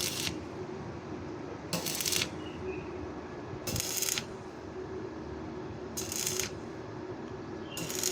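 Welding arc on tube, struck in short crackling bursts of about half a second roughly every two seconds, over a steady low hum.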